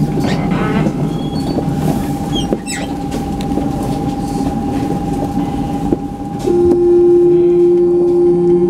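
Citadis 302 tram running slowly with a steady electrical whine, its rumble easing off. About two-thirds of the way through, a loud steady signal tone from the tram sounds for about three seconds.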